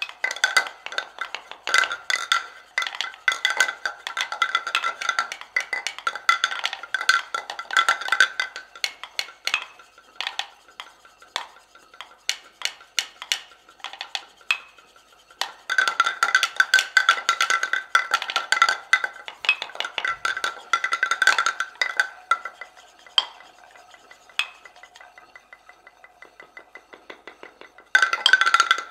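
An ensemble of hand-held mortars struck with pestles, played as percussion: dense, rapid clicking knocks, thinning to sparse single strikes in the middle and again in a quieter stretch near the end, before the dense clicking returns.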